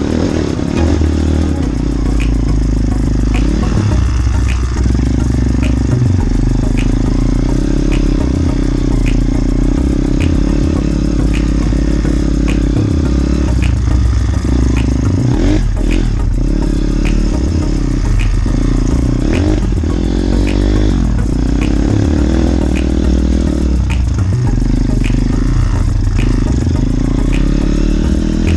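Small motorbike engines running while riding along a farm track, the revs rising and falling several times. A light regular ticking and some clatter run underneath.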